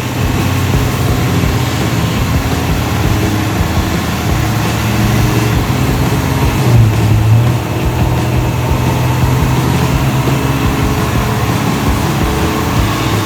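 Cammed 5.7 L Hemi V8 of a Dodge Charger R/T with Kooks long-tube headers, running steadily with a deep exhaust note and a brief swell about seven seconds in.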